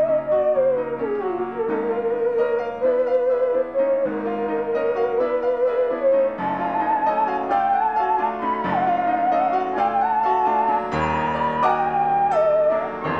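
Theremin playing a slow melody with an even vibrato and gliding between notes, accompanied by grand piano chords. About six seconds in, the melody moves up to a higher register.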